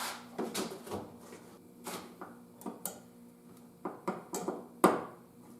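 Irregular clicks and knocks of hard parts and tools being handled during work on a Jeep's interior door handle, with one sharper knock about five seconds in over a faint steady hum.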